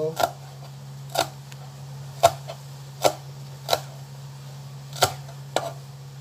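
Kitchen knife chopping through green beans onto the cutting surface: seven sharp chops at an uneven pace, roughly one a second.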